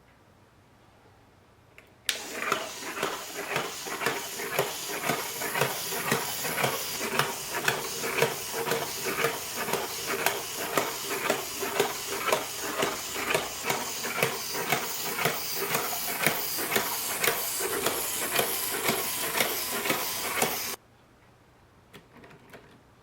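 LEGO Technic Power Functions electric motor whirring through plastic gearing as a four-legged walking model steps, with regular clacks about twice a second from the legs and feet. It starts about two seconds in and cuts off suddenly near the end when the motor is switched off.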